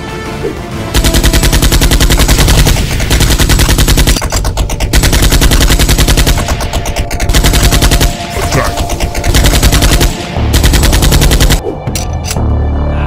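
Rapid automatic-gunfire sound effects in long bursts with short breaks, starting about a second in and dying away near the end, laid over a toy foam blaster's firing. Background music runs underneath.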